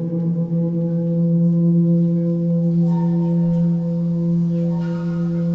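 A low sustained musical drone: one note held steady with its overtones, with higher overtones shimmering in and out partway through.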